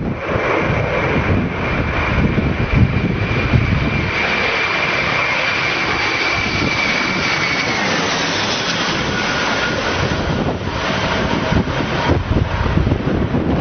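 Aircraft engine running with a steady high whine that drops in pitch about eight seconds in, over dense, rushing noise.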